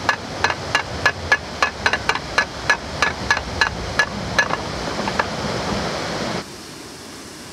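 Canal lock paddle gear being wound up with a windlass, its ratchet pawl clicking about four times a second over a steady rush of water through the opening paddle. The clicking stops about four and a half seconds in, and the rushing drops away suddenly near the end.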